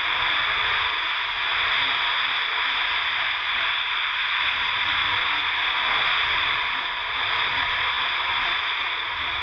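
1993 Kawasaki 750SX stand-up jet ski's two-stroke twin, bored to 770cc with an R&D exhaust, running at speed along with wind and water spray, heard as a steady, even hiss that holds without change.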